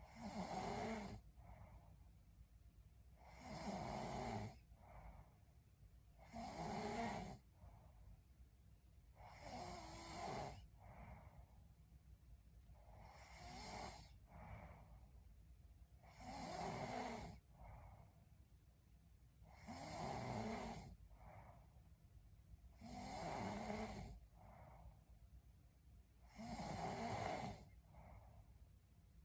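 A sleeping woman snoring steadily: about nine snores, one roughly every three and a half seconds, each lasting about a second, with a fainter breath between them.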